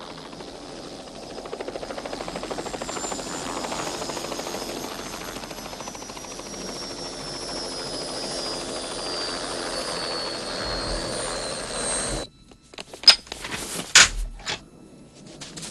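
Helicopter flying low: steady rotor chop under a high whine that falls slowly in pitch. It cuts off abruptly near the end, and two loud sharp bangs follow about a second apart.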